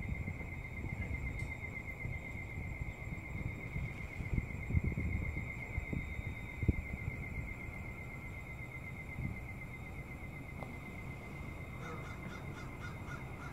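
Steady high-pitched trill of insects, most likely crickets, pulsing rapidly without a break, over a low rumble of wind on the microphone. Near the end comes a quick run of about six faint ticks.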